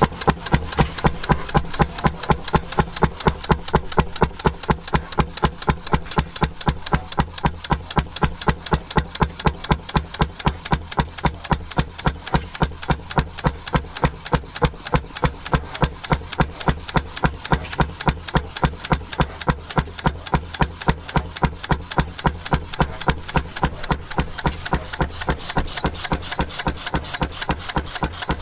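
Antique engine running with a steady, even beat of sharp exhaust strokes, about four a second, without missing a stroke.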